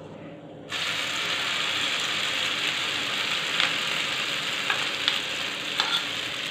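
Beaten egg mixture with chopped green chillies and onion poured into hot oil on a tawa: the sizzle starts suddenly less than a second in, then the egg fries steadily. A few light clicks come from the spoon scraping the steel mixing bowl.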